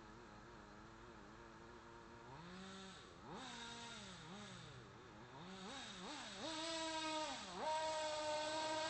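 Small engine of a radio-controlled model running, its pitch swinging up and down repeatedly and getting louder over the last few seconds.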